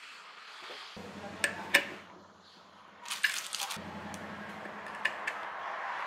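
Handling noises from a small aftermarket disc car horn being wired by hand: sharp metallic clicks, several close together about three seconds in, over the rubbing of cotton work gloves.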